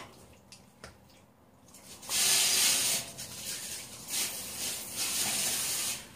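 A short knock right at the start. About two seconds in, water starts running from a kitchen tap into the sink, splashing unevenly, and it stops near the end.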